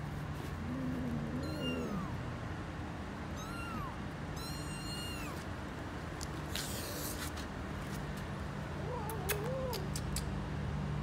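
Kittens mewing, three high, thin cries in the first half, with lower meows from the mother cat near the start and near the end. A short rustle comes about two-thirds of the way through.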